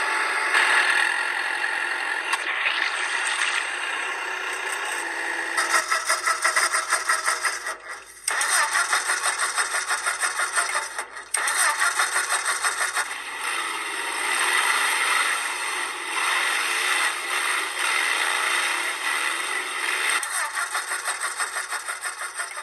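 A small motor running with a rapid rattling pulse and no deep low end, briefly cutting out about eight seconds in and again about eleven seconds in.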